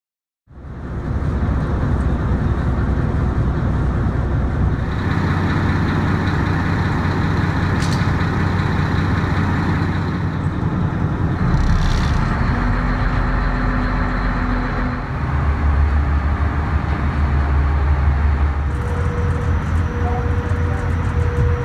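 Heavy engines rumbling steadily and loudly, with a couple of brief sharp knocks about 8 and 12 seconds in.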